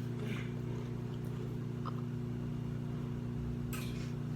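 Steady electrical hum from a mains-powered appliance, with a couple of short crunches of chewing chips, one just after the start and one near the end.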